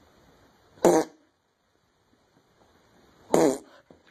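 Pit bull-type dog making two short, pitched sounds about two and a half seconds apart.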